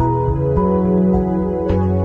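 Instrumental background music: slow, sustained chords that change about half a second in and again near the end.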